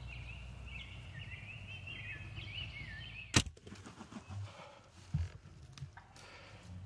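A small bird singing, then about three and a half seconds in a single sharp crack as a PSE Carbon Air compound bow is shot and its bottom cam strikes a camera tripod leg, derailing the bow. A few duller knocks follow.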